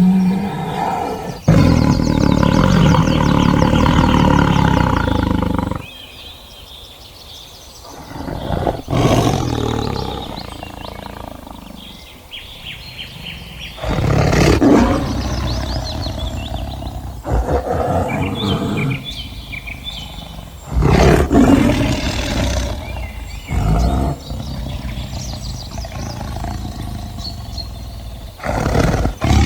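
Big cats roaring and growling: a string of separate loud calls, several starting or cutting off abruptly as one recording gives way to the next.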